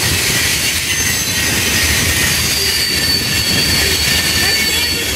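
Freight train's tank cars and covered hoppers rolling past, a steady rumble and rattle of steel wheels on the rails. A thin, high wheel squeal rides on top from about halfway in, for a couple of seconds.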